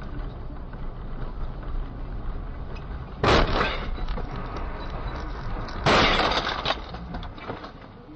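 Two sudden crashes with breaking glass, about two and a half seconds apart, each trailing off within a second, over a steady low rumble: a car crash.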